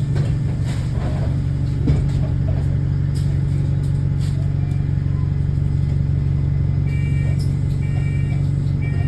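Double-decker bus diesel engine running steadily at a low, even note, heard from inside the bus, with the exhaust leak the bus is known to have. A single knock comes about two seconds in, and near the end a series of short electronic warning beeps starts, about one a second.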